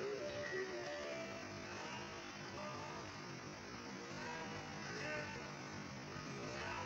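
Steady electrical hum with faint background music of short plucked notes.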